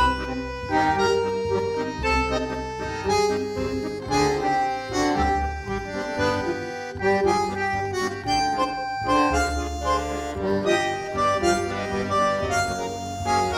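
Background instrumental music: held melodic notes in a reedy, accordion-like timbre over a pulsing bass line.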